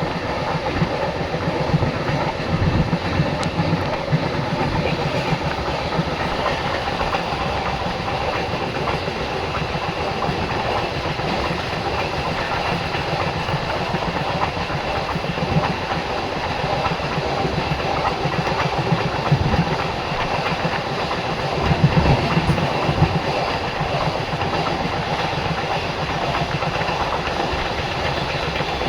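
Passenger express train running on the rails: a steady rumble with the clatter of wheels over rail joints, the clatter a little louder about three seconds in and again around twenty-two seconds.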